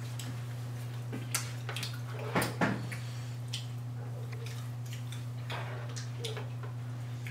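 Forks clinking and scraping on ceramic plates during a meal, a few light clicks with a louder clatter about two and a half seconds in, over a steady low hum.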